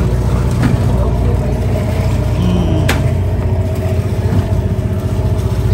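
Steady low rumble of a moving vehicle's engine and running noise, with a single sharp click about three seconds in.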